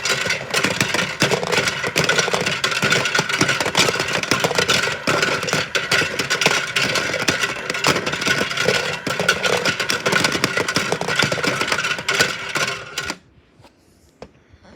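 Small toy washing machine running, its motor humming under a dense, fast rattling as the drum turns; it cuts off suddenly near the end.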